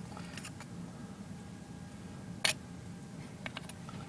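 A few light clicks and taps of a hand moving among the branches of a terrarium, the sharpest about two and a half seconds in, over a steady low hum.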